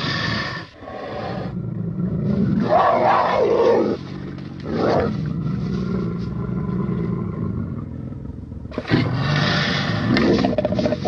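Horror creature sound effects: a series of deep, rough monster growls and roars, with a sudden louder roar about nine seconds in.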